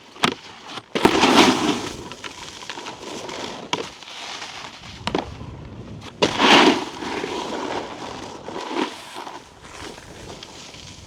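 Snowboard edge scraping over icy, choppy snow in two loud skids, about a second in and again about six seconds in, with sharp clacks from the board in between.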